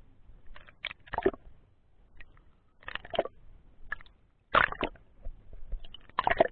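Muffled, irregular swishing bursts of water roughly once a second, as heard on an underwater camera's microphone.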